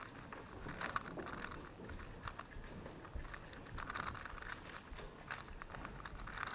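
Plastic speedcube being turned fast, giving quick irregular runs of clicks and clatter.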